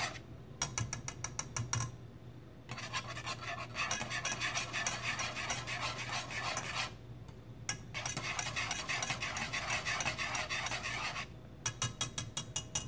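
Wire whisk scraping and clicking rapidly against a metal saucepan as milk, sugar and cocoa are whisked until the sugar and cocoa dissolve. It comes in spells, with short pauses about two seconds in and about seven seconds in, and ends in a few sharper strokes.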